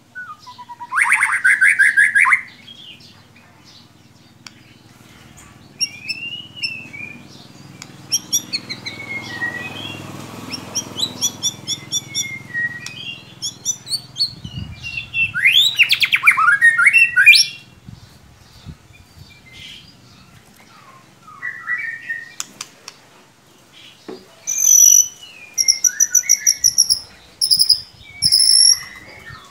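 White-rumped shama singing a loud, varied song: a buzzy trill about a second in, then whistles and rapid chattering notes, a loud sweeping phrase past the halfway mark, and a run of high repeated whistles near the end.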